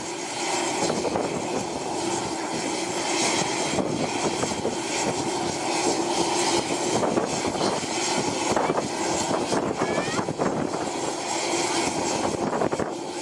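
AgustaWestland Merlin three-engine helicopter running, its turbines and rotor making a steady, loud noise with a constant hum.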